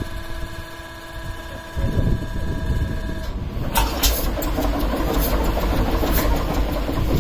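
Six-cylinder locomotive diesel engine started with its exhaust manifold removed: a steady electric whine, a deep rumble as the engine turns over about two seconds in, then from about three seconds it fires and runs, exhausting straight out of the open ports with irregular sharp cracks.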